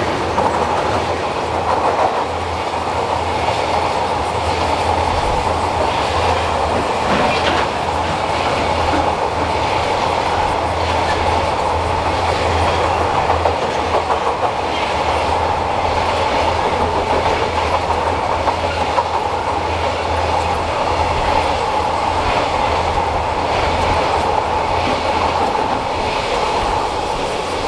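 Freight train of container wagons rolling past at close range, its wheels clacking over the rail joints in a steady, unbroken run.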